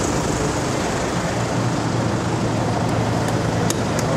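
Steady city street traffic noise with an engine idling close by as a low, even hum. A few faint, sharp clicks come in the last second or so.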